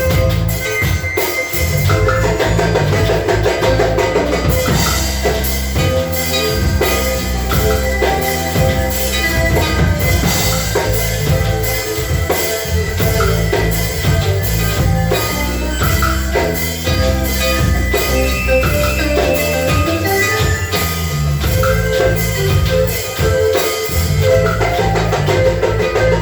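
Music with drums keeping a steady beat over a continuous bass line and sustained melodic tones.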